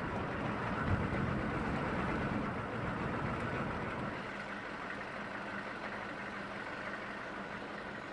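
A motor vehicle's engine running steadily, with a low rumble and a faint high whine, easing off a little about halfway through.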